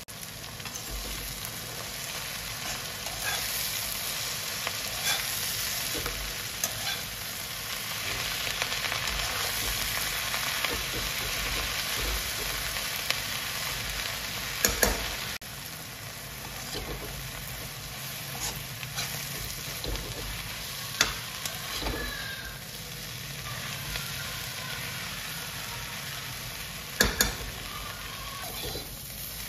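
Garlic chives sizzling as they are stir-fried in oil in a black kadhai, cooked down until crisp. A slotted metal spatula scrapes through them, clanking sharply against the pan a few times.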